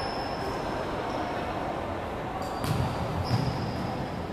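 Basketball game in a large hall: a couple of ball bounces on the wooden court about two-thirds of the way in, over steady hall noise with thin, faint high squeaks coming and going.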